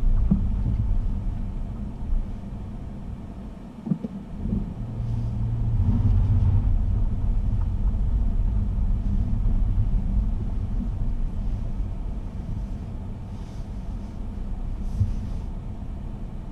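A car driving, its engine and tyres making a low, steady rumble, with a few short knocks about four seconds in. The rumble grows louder a second later, then slowly fades.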